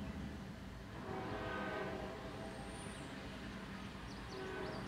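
Locomotive air horn sounding a long blast about a second in and starting another near the end, over the low rumble of a train. Faint bird chirps near the end.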